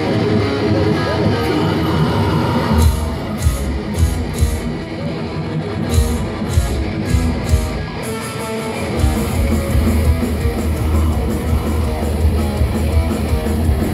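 A thrash metal band playing live, distorted electric guitars to the fore. A riff plays with little low end for the first few seconds, then the band comes in with a run of sharp accented hits, and from about nine seconds in the full band drives on steadily with bass and drums.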